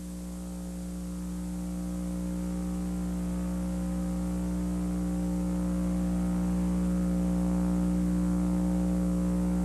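Steady electrical mains hum, several low tones sounding together, slowly growing louder.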